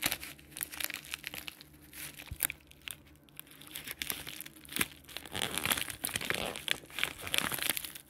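White mailer envelope crinkling and rustling as it is handled and pulled at, in irregular crackles that grow busier over the last few seconds.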